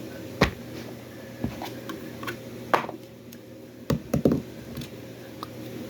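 Small objects being handled and set down on a hard surface: scattered knocks and taps, with a quick run of three about four seconds in.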